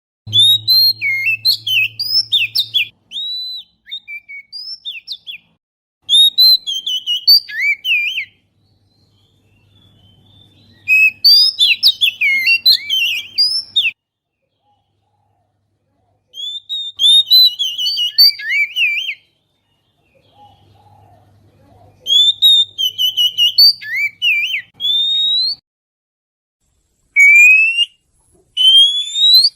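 Oriental magpie-robin (kacer) song played as a bird-lure call: phrases of varied clear whistles and chirps, sliding up and down, in bursts of one to three seconds separated by dead-silent gaps.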